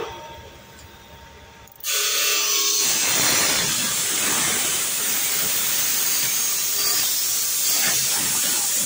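Air hissing out of a bicycle tyre's inner tube through its valve as the tyre is let down. The hiss starts suddenly about two seconds in and runs loud and steady.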